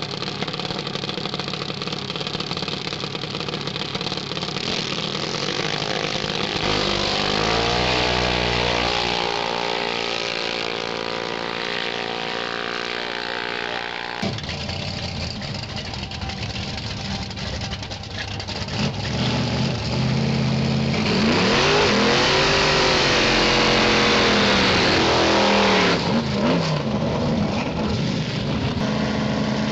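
Drag-racing engines at full throttle. One engine's pitch climbs steadily as it accelerates, then breaks off abruptly about halfway through; later, engines rev up and down.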